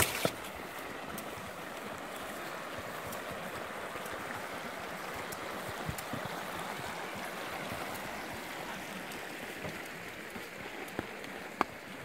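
Shallow rocky creek running over stones in a riffle, a steady rushing sound that eases slightly near the end, with a few faint clicks in the last second or two.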